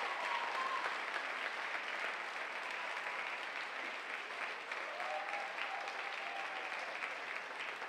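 Theatre audience applauding steadily as the dancer takes her bow.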